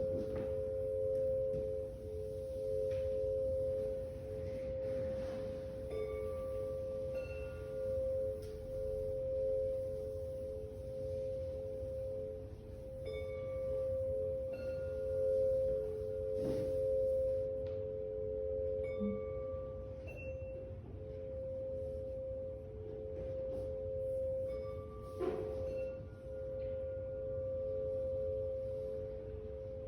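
Tuning-fork chime bars ringing: two close, steady tones held throughout, their level wavering, with a few fresh strikes that add a light click and brief higher tones.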